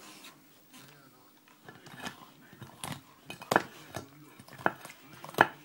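Bull terrier chewing at a cooked pig's face on a ceramic plate: irregular sharp clicks and knocks of teeth and bone against the plate, about half a dozen, the loudest near the end.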